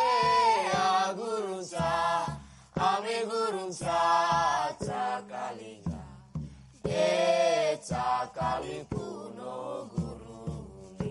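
A group of voices singing a chant together in short phrases, with brief pauses between phrases. The singing thins out and gets quieter over the last couple of seconds.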